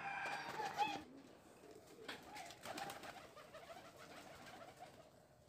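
Domestic pigeons cooing softly, a wavering low call repeated through most of the stretch, with a few light taps in the middle.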